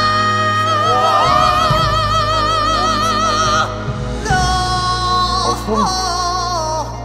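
A pansori-trained male voice holds a long high note with strong vibrato over steady instrumental backing. About three and a half seconds in, he breaks and takes a second long high note that steps down in pitch and ends just before the end.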